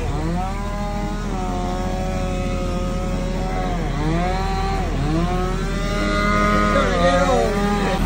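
Heavy-equipment diesel engines running, with a steady low drone under them. One engine's pitch repeatedly sags and climbs back, about four times, as the revs dip and recover.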